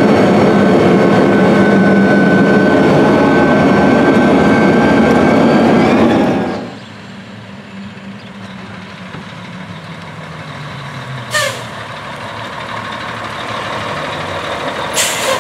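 Cab noise of a Challenger MT875E track tractor running at about 8 mph: a loud, steady drone with a steady whine. Partway through it cuts to the quieter running of a Mack R-series truck's diesel engine as the truck moves off, with a short air-brake hiss about halfway through and another near the end.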